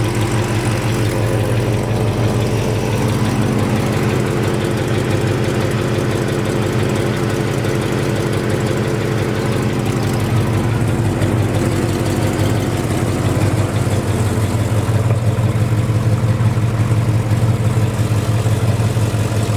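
1968 Chevelle SS's 396 big-block V8, bored over with a mild cam and stock manifolds, idling steadily through a new exhaust.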